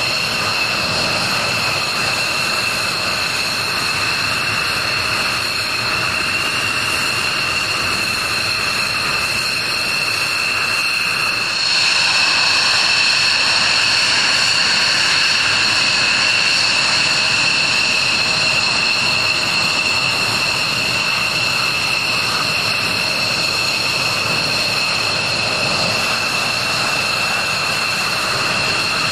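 F-16 fighter jet engines running steadily: a high-pitched whine of two steady tones over a rushing hiss. The whine grows a little louder about twelve seconds in.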